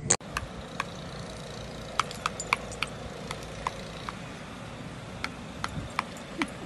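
Scattered light metallic clinks, irregular and a few a second, over a steady low outdoor rumble, with one sharp click at the very start.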